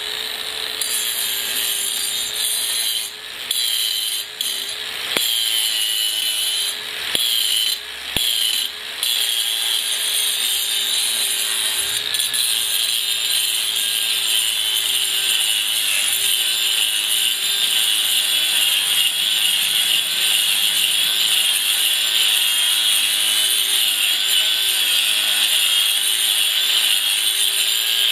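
ToolPRO 18V brushless angle grinder with a diamond cup wheel grinding concrete, running under load with a steady high whine. The load eases briefly a few times in the first nine seconds, then stays even.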